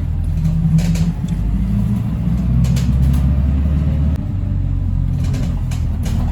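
PostBus engine running as the bus pulls away, heard from inside the passenger cabin: a steady low drone whose pitch shifts a few times, with a few light clicks.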